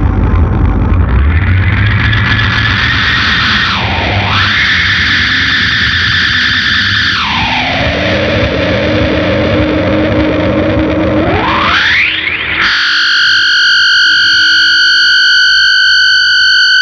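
SG electric guitar played through a Big Muff fuzz pedal and an MXR Analog Delay with light reverb, giving a distorted, echoing wash. The tone swoops down and back up in pitch several times. Near the end it cuts abruptly to a steady, held high tone.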